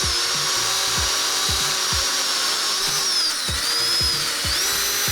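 Handheld electric drill boring a hole through the mini skid steer's steel frame, a steady loud grinding with a high motor whine that sags briefly about three and a half seconds in as the bit bites, then picks back up.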